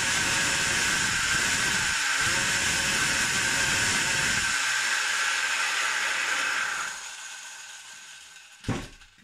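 Small 40cc two-stroke pocket bike engine held at high revs with its CDI ignition advance turned fully up, easing briefly about two seconds in, then winding down and fading away. A single short knock near the end.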